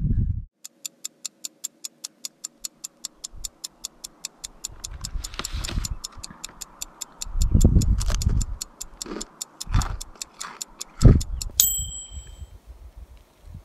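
Clock-ticking sound effect, about four sharp ticks a second, ending in a single bright timer ding near the end. Under it come a few thumps and rustles of cooking gear and a plastic food bag being handled.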